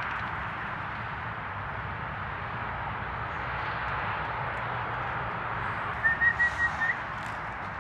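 A quick run of about six short, high whistle notes on one pitch, about six seconds in, over a steady outdoor background hiss.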